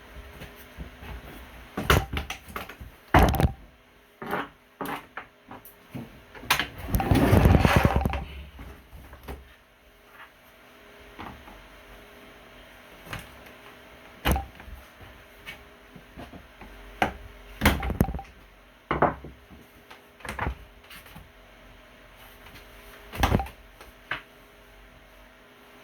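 Scattered knocks and clicks of handling and tool work, with a longer rustling scrape about seven seconds in, over a faint steady hum.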